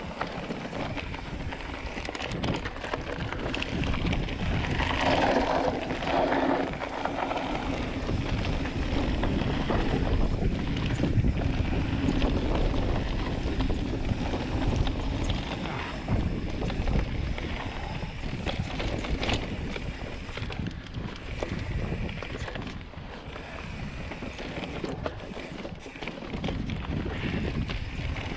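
Wind rushing over the camera microphone as a full-suspension mountain bike descends a dirt singletrack, with the tyres rolling on dirt and the bike rattling over bumps.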